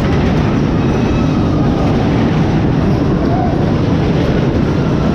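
Loud, steady rumble of an amusement ride running.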